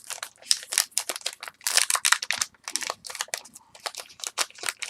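Baseball trading cards handled and flipped through by hand, a quick run of card-on-card clicks and sliding swishes.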